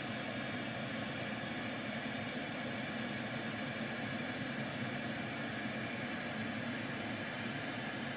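Pink noise test signal playing steadily through Rockford Fosgate T2652-S component speakers (mids and tweeters), an even hiss with little deep bass. It is the test signal used to level out the system's equalization against a real-time analyzer.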